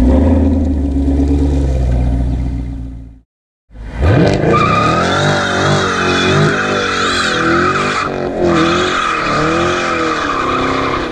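2018 Camaro SS's 6.2-litre V8 through its NPP active exhaust: a deep steady rumble, then, after a moment of silence about three seconds in, it revs up and the rear tires squeal in a burnout. The squeal wavers as the car pulls away.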